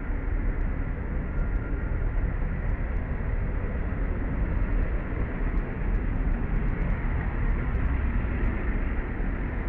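Steady low rumbling background noise without a distinct event, heaviest in the bass and flickering unevenly.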